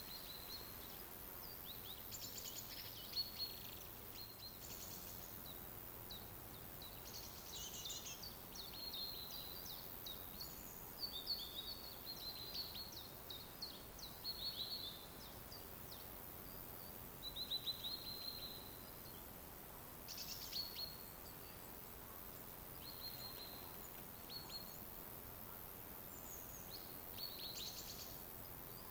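Small songbirds chirping and calling in a forest, in short high trills and chirps every second or two, over a faint steady background hiss.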